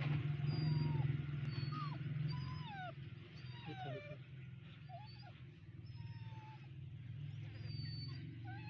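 A puppy growling low and without a break while it is held down, with small birds chirping over it.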